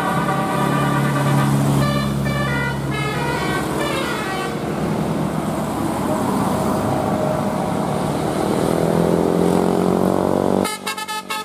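Indonesian bus 'telolet' multi-tone musical air horn sounding: a held chord, then a quick run of short notes. The bus engine then rises steadily in pitch as it revs up. The sound changes abruptly near the end.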